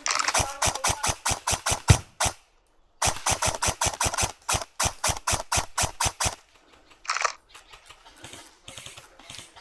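Airsoft gun firing two rapid strings of shots, about six or seven a second, the first lasting about two seconds and the second about three seconds after a short pause.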